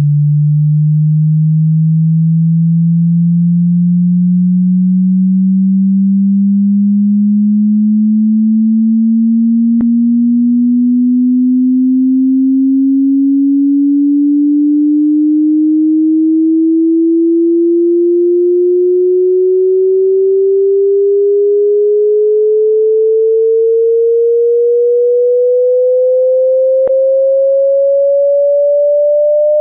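Pure sine-wave test tone of a hearing-test frequency sweep, rising slowly and evenly in pitch from a low hum to a mid-range tone.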